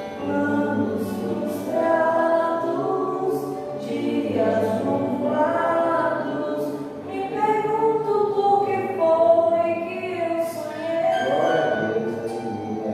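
A group of voices singing a gospel hymn together, held notes that move from phrase to phrase.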